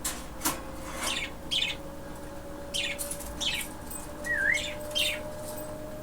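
Pet budgerigar chirping: a string of short, high chirps, with a brief whistle about four seconds in, over a faint steady hum.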